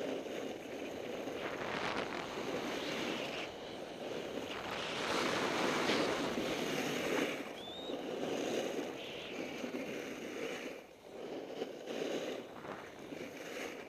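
Wind rushing over the camera's microphone during a fast descent on a groomed ski run, mixed with the hiss and scrape of edges carving packed snow, swelling and fading with each turn.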